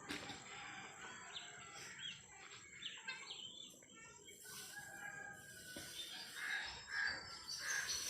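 Aseel chickens calling in a yard: scattered short calls and chirps, with a rooster crowing among them.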